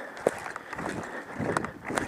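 Quick running footsteps with gear rustling, and one sharp click about a quarter of a second in.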